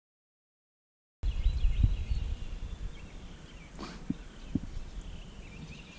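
Dead silence for about the first second, then a low rumble on the microphone that fades away, with small birds chirping and a couple of light knocks.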